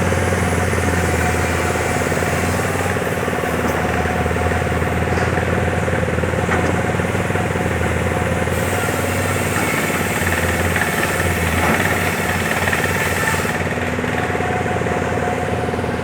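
210-10 hydraulic excavator's diesel engine running steadily under work.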